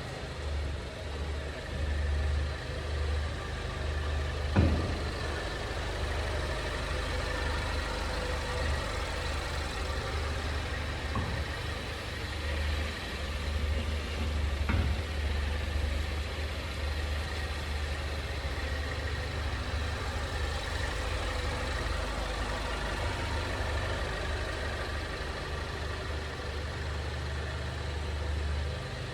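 Steady drone of a 2020 Ford Mondeo wagon heard inside the cabin, broken by three short knocks from the chassis, the loudest about four and a half seconds in and two fainter ones later. The knocks are the abnormal underbody noise the owner is chasing on the nearly new car.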